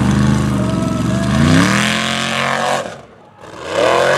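Off-road racing buggy's engine revving hard under load as it climbs a loose sandy slope, its pitch rising and falling. The engine note drops away briefly about three seconds in, then revs up again near the end.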